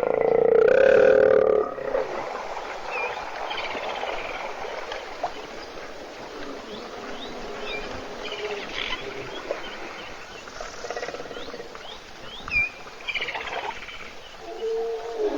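Wildlife at an African bushveld waterhole: a loud, pitched animal call for about the first second and a half, then many short bird chirps and whistles over a steady hiss, with a shorter pitched call near the end.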